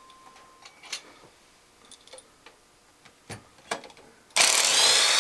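A few light metallic clicks and taps of hand tools on the engine. About four seconds in, a power tool runs for about a second with a rising whine, backing out one of the water pump bolts.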